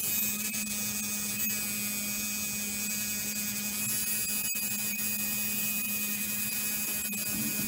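Tattoo machine buzzing steadily as its needle works ink into skin.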